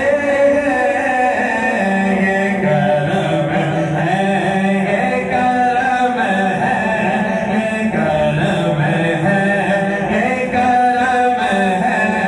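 Men's voices singing a devotional chant, continuous and without pauses, with a steady low held line beneath the melody.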